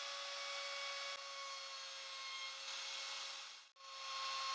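Router with a 22 mm round-over bit cutting along the edges of cedar wood: a steady high whine over the hiss of cutting. It drops out briefly about three-quarters of the way through, then comes back.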